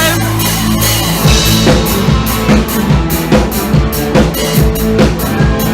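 Live rock band playing: a low held sound for about the first second, then a drum kit comes in with a steady beat of kick and snare over a bass line as the band launches into its first song.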